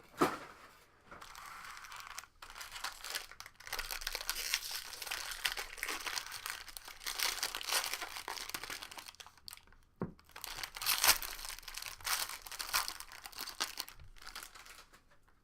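Plastic wrapping on a box and packs of baseball trading cards crinkling and tearing as it is pulled open by hand, in several crackly stretches with a sharp click about two-thirds of the way in.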